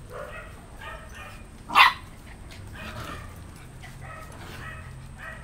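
Puppies whining and yipping in short, high cries several times, with one sharp, much louder yap about two seconds in.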